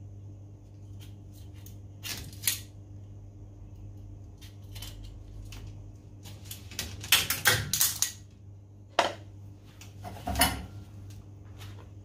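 Metal hand tools being handled while working on refrigeration wiring: scattered metallic clicks and clatters, with a busy burst of them a little past the middle and two sharp knocks after it. A steady low hum runs underneath.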